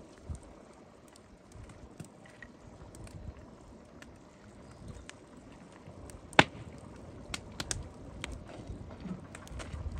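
Small round pieces of food dropped by hand into a large pot of steaming stew, landing with a few scattered plops and clicks. The sharpest comes about six and a half seconds in, and a quick run of smaller ones follows over a faint steady background hiss.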